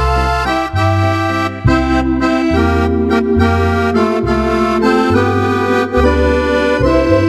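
Roland FR-4X digital accordion playing a tune: held chords and a melody over a bass line that steps to a new note about once a second.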